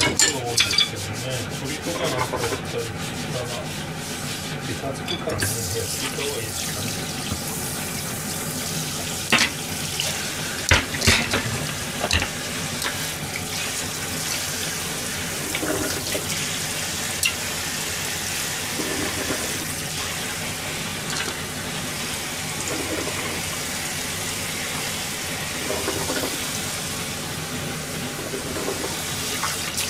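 Kitchen tap running into a stainless steel sink while dishes are washed by hand, with a few clinks of crockery and utensils, several of them close together about ten seconds in.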